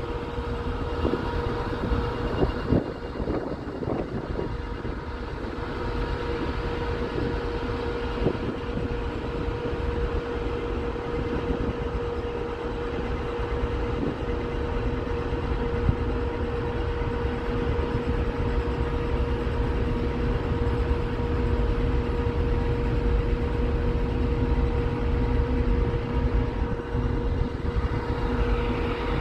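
A ship's engines and machinery droning steadily while underway, with a constant mid-pitched hum over a heavy low rumble.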